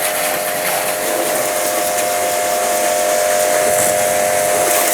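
Steady hiss with a constant mid-pitched hum running under it.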